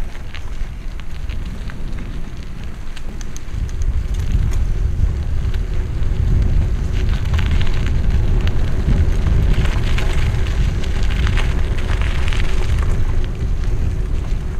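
Wind buffeting a helmet-mounted camera's microphone as a mountain bike rolls along a forest track, with crackling from the tyres on gravel and rattles from the bike. It gets louder about four seconds in as the bike picks up speed.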